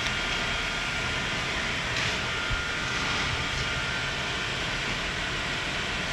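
Steady mechanical hiss and hum of background noise, with a couple of faint clicks about two seconds in.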